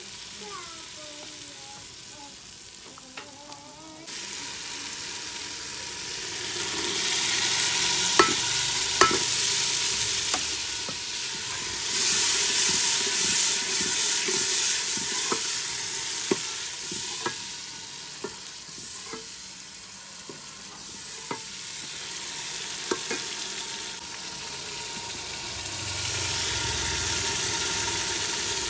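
Green peas frying in hot oil in a steel pot, with loud sizzling as a steel ladle stirs them and clinks against the pot. The sizzling starts a few seconds in and is loudest around the middle.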